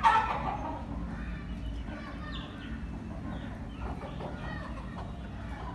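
Young Aseel chickens clucking and peeping, with a short loud burst of sound right at the start.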